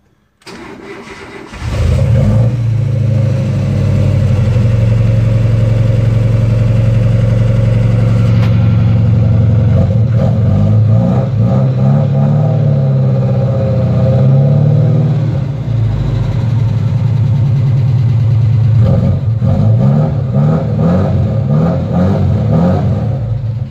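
Mazda B2200 mini truck's four-cylinder engine starting up about a second and a half in, then running loud through its headers and newly welded-on exhaust and muffler. The engine speed rises and falls a few times in the middle and near the end.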